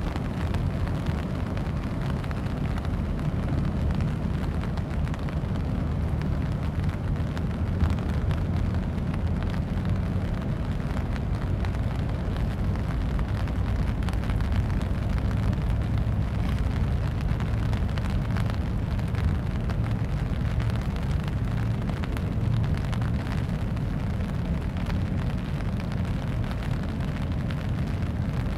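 Wind buffeting the microphone: a steady low rumble with a faint hiss over it.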